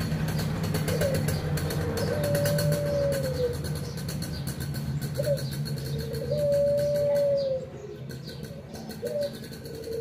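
Ringneck (Barbary) dove cooing: a short note followed by a long drawn-out coo that dips at its end, repeated about every four seconds, twice through in full. A low steady rumble runs underneath.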